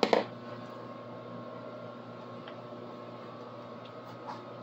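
A short knock as something is set down on a table, then a steady low electrical hum with two faint ticks later on.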